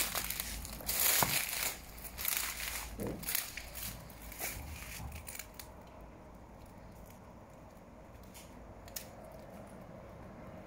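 Footsteps crunching and crackling on debris in a ruined building, a quick irregular run of sharp crunches that dies away about halfway through, leaving only faint ambience.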